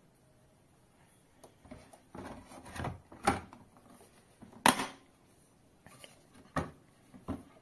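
Hard plastic knocks and clicks as a monitor stand's bracket is fitted into the mount on the back of the monitor, with some handling rustle. The two loudest knocks come about three and four and a half seconds in, and two smaller ones come near the end.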